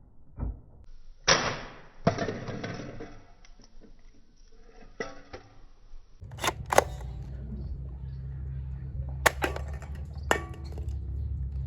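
Battery-powered toy gun's electronic shooting sound effects from its small speaker, with sharp plastic clicks from the trigger and handling. A steady low hum sets in about halfway through, with a few loud clicks over it.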